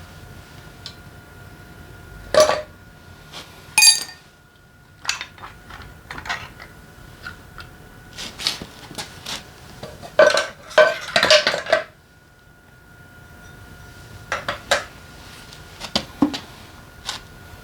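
Metal engine parts and hand tools clinking and knocking together during motorcycle engine disassembly: scattered sharp clinks, with a busy run of clattering about ten seconds in.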